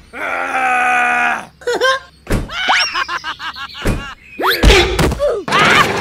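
Cartoon sound effects: a long, held groan-like cry, then thuds mixed with quick rising whistle-like glides and a fast run of chirps, and chattering cartoon voices near the end.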